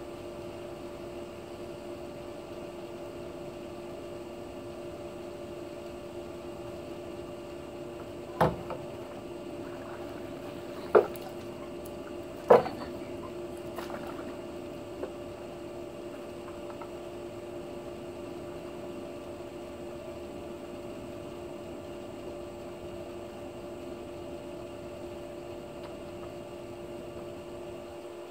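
Water sloshing under a steady two-note hum while a long pool-cleaning pole is worked through an above-ground pool, with three sharp knocks about eight, eleven and twelve and a half seconds in.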